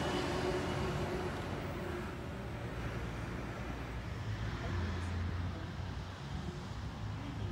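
Double-deck electric suburban train running away, its motor whine fading over the first second or so. After it, a steady low rumble of background noise.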